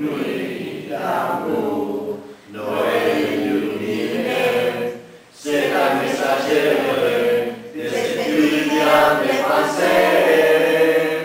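Mixed group of men and women singing a French Christmas song unaccompanied, in four phrases with brief pauses between them.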